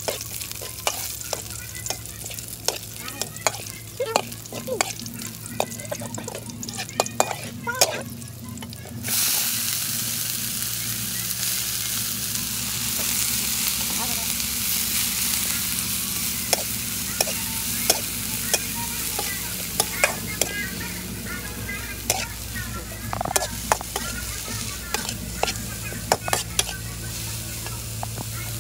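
A metal spatula scrapes and taps a steel wok while chopped garlic fries in oil. About nine seconds in, a loud sizzle starts suddenly as leafy greens go into the hot wok, and it keeps hissing under the spatula's clicks and scrapes as they are stir-fried.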